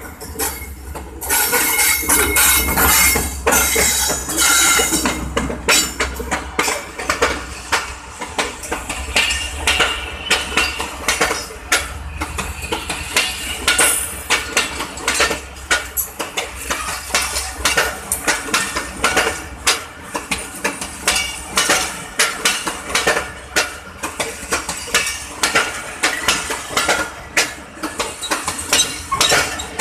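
Passenger train passing close by. The ZCU30 diesel locomotive goes by in a loud rush about a second in. Then the coaches roll past with a rhythmic clatter of wheels over rail joints and points, with sharp metallic clinks, about one beat a second.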